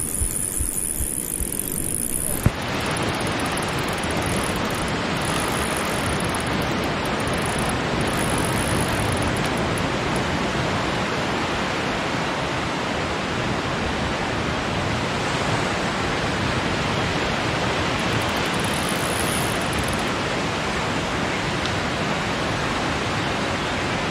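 Steady rushing noise of surf and wind, setting in abruptly after a short lower rumble about two and a half seconds in and holding even throughout.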